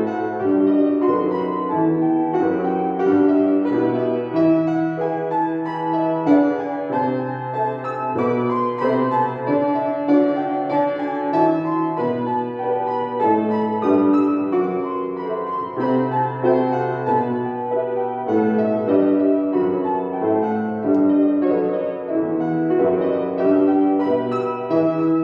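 Solo piano playing continuously, a melody over held low bass notes.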